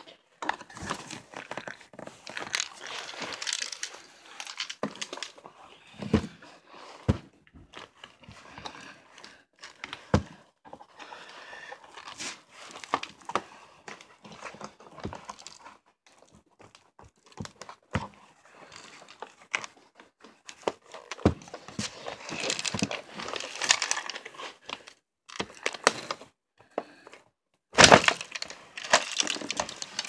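Handling noise: scattered clicks and light knocks with stretches of rustling, and a louder burst of rustle and knocks near the end.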